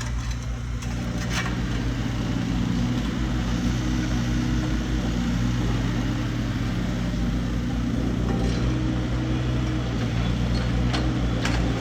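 Digger's diesel engine running steadily at a constant speed, with a few faint knocks.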